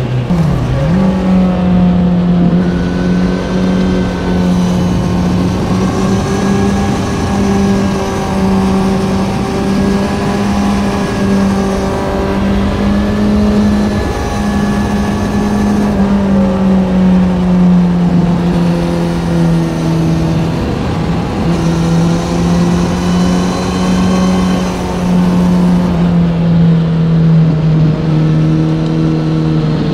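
Kawasaki Z900's inline-four engine through an Ixil SX1 full exhaust, running under way at a fairly steady mid-rev note. Near the start the revs dip sharply and climb straight back up.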